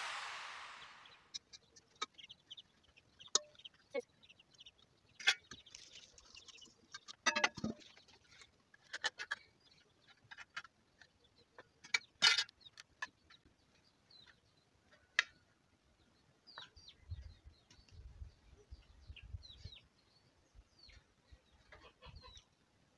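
Faint, scattered clinks and knocks of a metal cooking pot, its lid and a knife against a metal plate, with birds chirping in the background, most plainly in the second half. Background music fades out in the first second.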